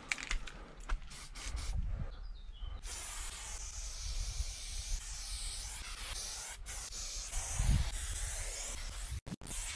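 Aerosol spray paint can hissing steadily as a black outline is sprayed close onto a concrete wall, after a few clicks and knocks in the first three seconds. The hiss breaks off briefly near the end.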